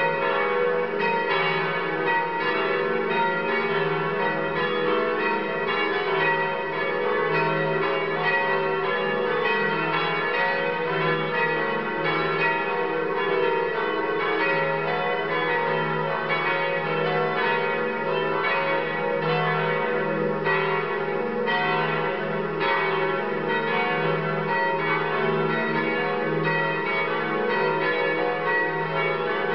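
Cathedral bells pealing: many strikes in quick succession, their tones overlapping into a continuous ring.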